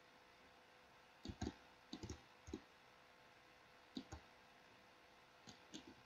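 Faint computer mouse clicks, several of them, mostly in quick pairs.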